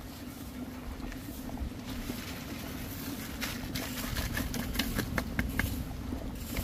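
A steady low hum runs underneath, with a quick run of sharp clinks and knocks about halfway through, some of them briefly ringing.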